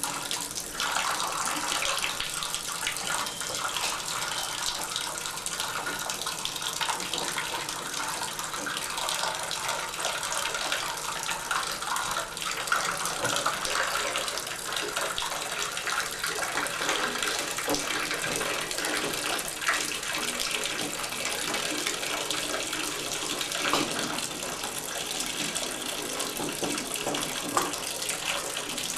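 Water running steadily from a tub and shower valve into the bathtub as the water left in the valve drains out after the supply has been shut off.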